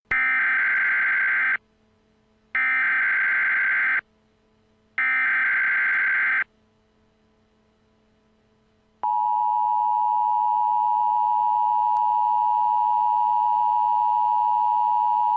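Emergency Alert System tones: three buzzing data bursts of the SAME header, each about a second and a half long and a second apart. After a pause of about two and a half seconds, the steady two-tone EAS attention signal begins. The pattern marks the start of an emergency alert broadcast.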